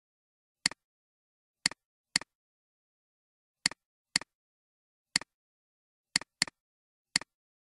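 Nine short, sharp clicks at uneven intervals, each followed at once by a fainter second tick, with dead silence between them.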